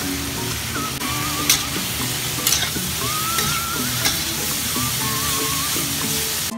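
Enoki and white beech mushrooms with carrot sizzling in a hot oiled stainless-steel wok while a metal spatula stirs them, with a few sharp clicks of the spatula against the wok.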